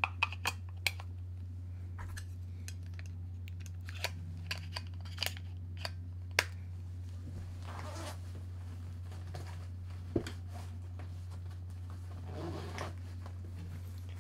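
Small plastic camera gear being handled on a desk: a run of sharp, separate clicks and knocks for the first several seconds, then two spells of soft rustling as things are moved about, over a steady low electrical hum.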